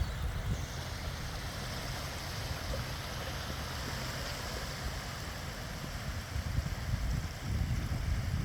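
Steady wash of sea water along a shoreline, with wind buffeting the microphone in low gusts that grow stronger near the end.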